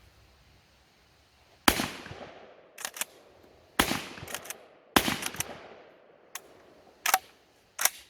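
12-gauge shotgun firing birdshot: three loud shots about two seconds and then a second apart, each with a short decaying echo. Smaller sharp cracks fall between and after the shots.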